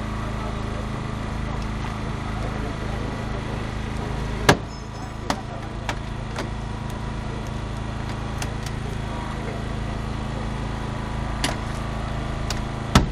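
Small engine of a hydraulic rescue-tool power unit running steadily, with several sharp metallic cracks from the hydraulic tool working on the car body, the loudest about four seconds in and just before the end.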